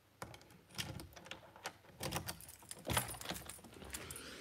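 Faint, irregular jingling and clicking of a bunch of keys as a door is unlocked and pushed open.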